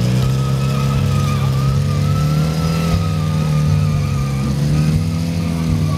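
Motorcycle engine held at high revs, running steadily with slight rises and dips in pitch, as in a burnout.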